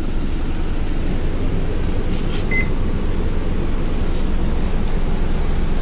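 Steady low hum inside a city bus stopped with its doors open, from the engine idling and the air conditioning, with one short electronic beep about two and a half seconds in.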